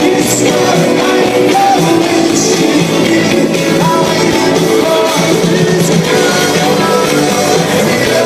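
Live rock band playing, loud and steady, with electric guitars and singing.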